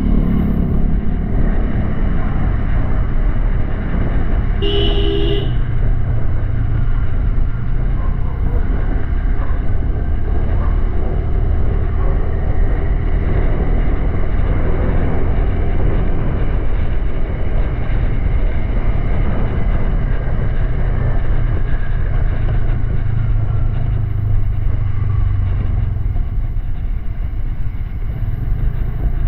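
Honda Click 125i scooter's single-cylinder engine running steadily on the move, with a short horn beep about five seconds in.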